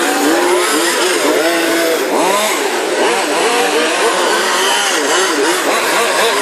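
Several 1:5 scale radio-controlled Formula 1 race cars with small two-stroke petrol engines running together, their overlapping engine notes rising and falling constantly as they rev up and back off.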